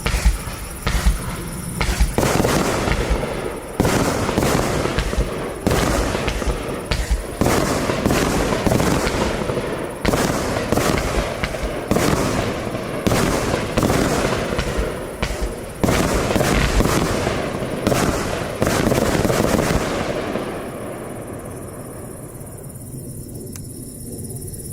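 A 25-shot consumer firework barrage (Funke Funkenweide Scale 25) firing. Sharp bangs of shells launching and bursting come every second or two over a continuous hiss, and the volley dies down about twenty seconds in as the cake finishes.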